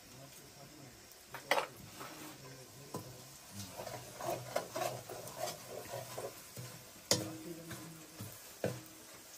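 Metal spatula scraping and clacking against an iron wok while stirring mushrooms frying in oil over a wood fire, with a faint sizzle underneath. There are sharp clacks about a second and a half in and again about seven seconds in, and a run of quick scraping strokes in between.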